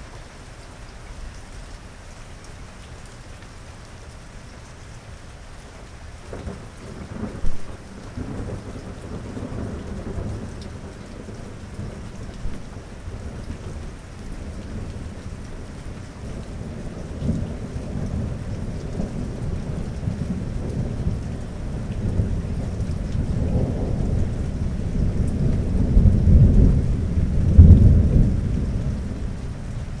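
Steady rain with thunder: a crack of thunder about seven seconds in, then a long, deep rolling rumble that swells to its loudest near the end and dies away.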